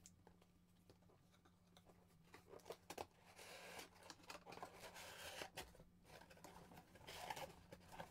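Faint handling of a cardboard toy box: rustling, scraping and light taps as the inner packaging is slid out, busiest in the middle and again near the end. A steady low hum runs underneath.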